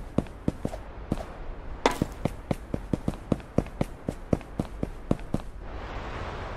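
A quick run of sharp taps, about three or four a second, stopping about five and a half seconds in, after which a steady rushing noise takes over.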